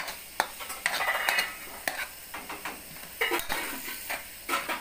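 Metal ladle scraping and knocking against a wok while stirring a frying vegetable and noodle filling, with a light sizzle underneath. Sharp knocks come every second or so, with a longer scrape about a second in.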